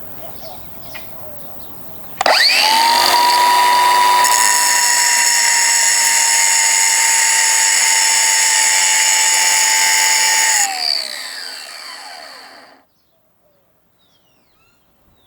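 Electric grinder starts about two seconds in, runs at a steady high whine while grinding on a steel wheel stud, cutting a notch so the stud clears the ABS gear, then is switched off near the end and winds down to a stop.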